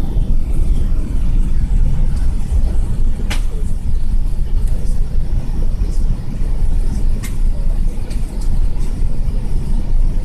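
Steady low rumble inside an Airbus A380 cabin as the aircraft taxis. Two short clicks stand out, about three and seven seconds in.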